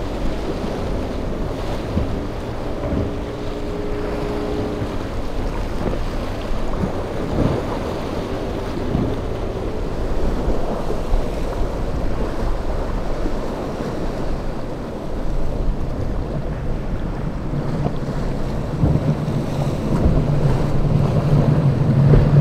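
Wind buffeting the microphone over surf and choppy water, with the outboard motors of passing center-console boats running through the waves. A steady low engine drone comes in and grows over the last few seconds.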